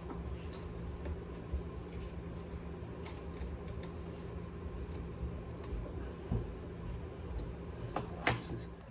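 Scattered small metallic clicks and scrapes of a screwdriver working at the screw of the PlayStation 5's SSD expansion-slot cover plate, with a sharper click near the end, over a steady low hum.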